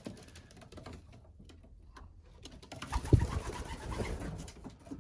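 Racing pigeons in a small loft: faint scattered clicks and shuffling, then about three seconds in a louder burst of noise with a low thump that lasts over a second.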